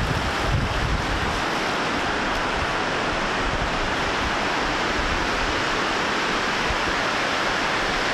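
Steady rushing hiss with uneven low rumbling buffets underneath: wind blowing on the microphone of a camera that is moving.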